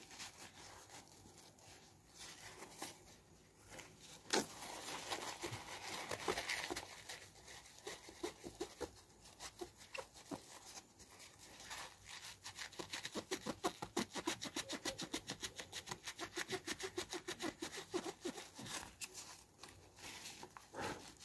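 A tissue or cloth rubbing over the glass front of a Samsung Galaxy Note 8 phone, cleaning a smudge off the screen and front camera lens. Light rustles and taps at first, then about halfway through a fast back-and-forth run of short wiping strokes, several a second, lasting several seconds.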